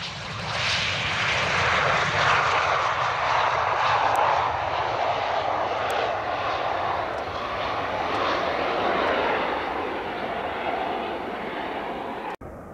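A Eurofighter Typhoon's twin EJ200 turbofan jet engines running as the fighter moves along the runway: a loud, steady jet noise that eases slightly in the later seconds and stops abruptly near the end.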